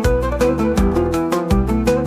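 Oud music: quick runs of plucked oud notes over a sustained low bass line and a steady, even beat of sharp strikes.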